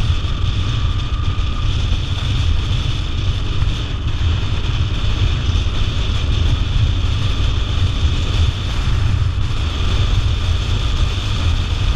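Motorcycle being ridden along a road at steady speed: wind rushing over the camera microphone with a low, steady rumble underneath.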